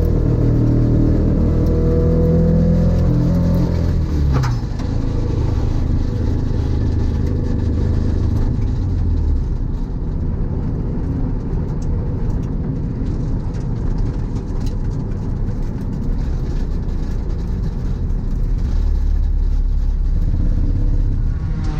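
A car engine running hard and revving, its pitch changing, with one sharp click about four seconds in. Near the end the pitch drops steeply.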